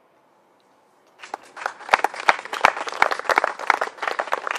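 Audience applauding, starting suddenly about a second in. The claps are dense but still heard as separate hand claps.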